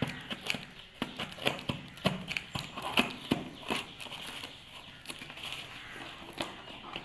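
Parcel packaging being cut and torn open by hand: irregular crinkling of plastic wrap with sharp clicks and scrapes, several a second.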